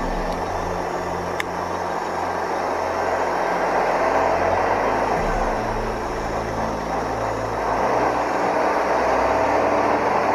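Truck diesel engines idling and running slowly in a line of traffic, a steady low hum under road rumble that grows louder about halfway through and again near the end. A single sharp click sounds about a second and a half in.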